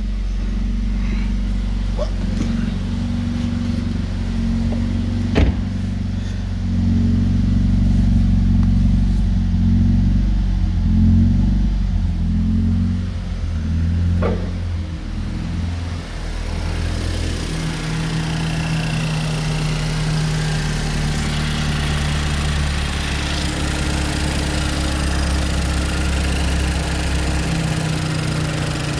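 Freshly rebuilt Opel A20NFT 2.0 turbocharged direct-injection four-cylinder running: the engine speed rises and falls a few times in the middle, then settles to a steady idle. A steady rushing noise joins in about halfway through.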